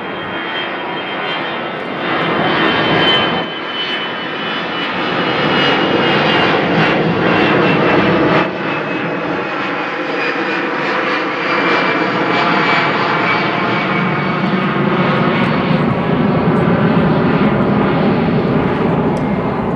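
Boeing 747-400F freighter's four Rolls-Royce RB211 turbofans running at taxi power as it moves off after landing: a steady jet roar with a high whine that slowly falls in pitch.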